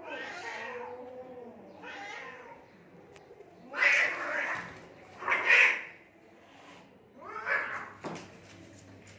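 Domestic cats fighting: a long, wavering yowl at the start and another shorter call, then loud, harsh hissing screeches about four and five and a half seconds in and again near the end.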